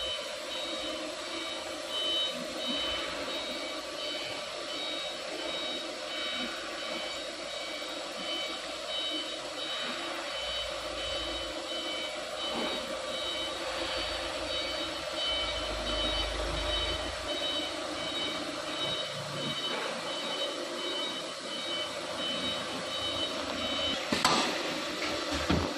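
Large CNC router with a saw unit moving its head: a steady machine hum under a regularly repeating high electronic beep. The beep stops about two seconds before the end, followed by a sharp clunk.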